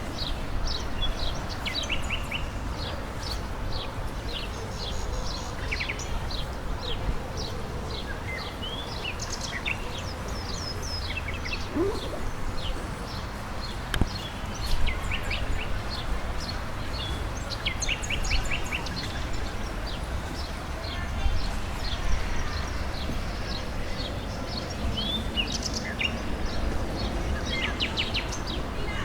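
Small birds chirping and trilling, many short repeated calls throughout, over a steady low outdoor rumble, with a few brief louder sounds about halfway through and again about three-quarters through.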